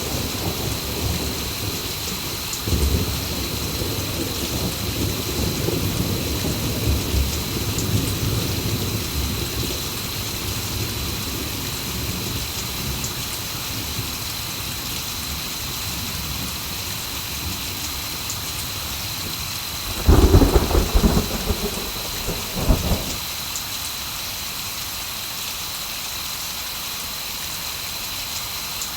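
Steady heavy rain with thunder: a low rolling rumble through the first third, then a loud crack and rumble of thunder about two-thirds of the way through.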